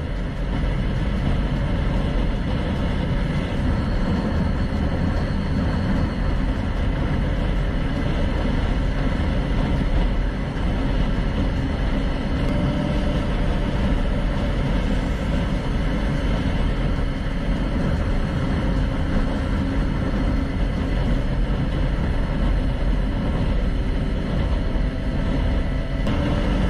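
Motorcycle riding on the road: engine and road noise from the rider's camera, at a steady level.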